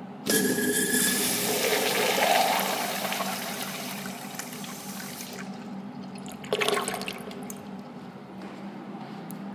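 A Kohler Dexter urinal flushing: a sudden loud rush of water that holds for a couple of seconds, then tapers off. About six and a half seconds in there is a second, short burst of rushing.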